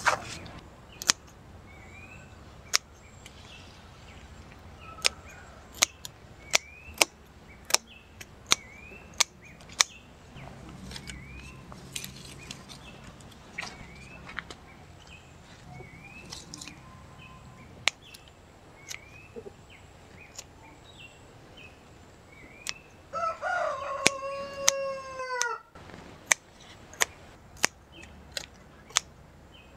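A rooster crows once, a long crow falling in pitch that cuts off abruptly about three quarters of the way through. Around it, small birds chirp short rising notes and there is a string of sharp snaps, like plant stems being broken off by hand.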